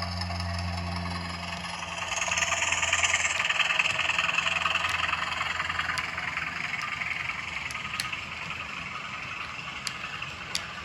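Model Class 20 diesel locomotive with factory-fitted DCC sound, its recorded diesel engine sound playing through the loco's small speaker as it runs along the track: a steady low hum dies away in the first two seconds, then the engine sound rises as it powers up and slowly eases off, with a few sharp clicks near the end.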